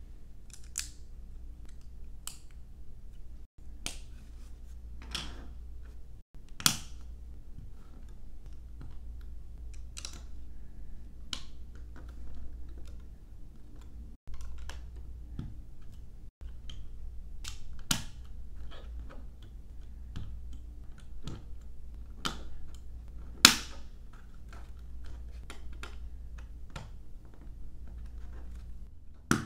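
Plastic LEGO pieces clicking and snapping together under the fingers as they are pressed into place: irregular small clicks with a few sharper clacks.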